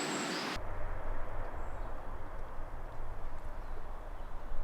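Low, uneven outdoor rumble, with a brighter hiss that cuts off suddenly about half a second in.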